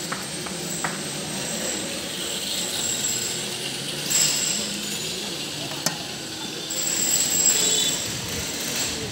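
Steady street and traffic noise that swells twice, with a few sharp clicks from a knife cutting a raw onion held in the hand.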